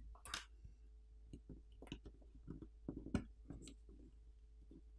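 Faint, irregular small clicks and taps of a SIM card tray being slid out of the edge of a Samsung Galaxy A32 5G, with the phone handled on a table.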